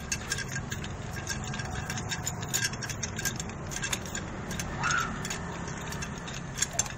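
Light metal clicks and scrapes as the clutch assembly of a Honda Revo Fit motorcycle engine is handled and seated on its shaft by hand, over a steady low hum.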